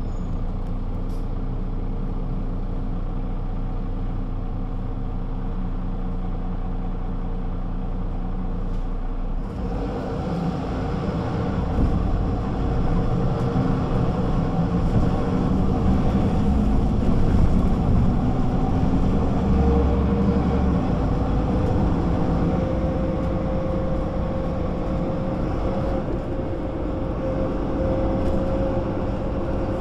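Güleryüz Cobra GD 272 city bus engine idling steadily, then about nine seconds in it runs up and gets louder as the bus pulls away and accelerates. Later a whine rises in pitch and then holds steady.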